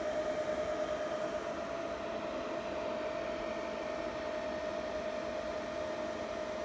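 Antminer L3++ ASIC miner's cooling fans running at speed: a steady rush of air with a constant whine held at one pitch.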